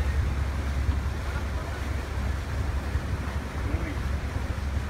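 A boat's inboard engine running at a steady pace with a low hum, under an even rushing noise of wind and water.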